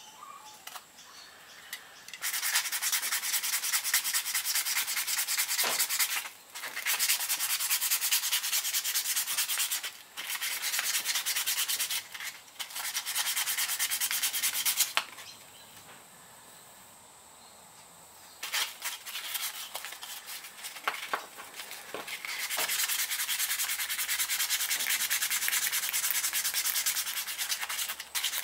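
Hand sanding a small wooden swimbait body with sandpaper: runs of quick back-and-forth rubbing strokes. The first couple of seconds are quieter, and the strokes stop briefly several times, with a longer pause around the middle.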